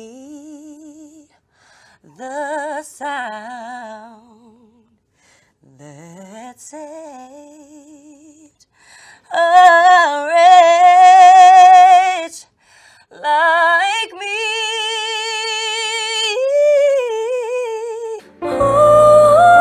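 A woman singing unaccompanied in short phrases with wide vibrato and vocal runs, building to loud held notes partway through. Just before the end, louder music with instruments comes in under the voice.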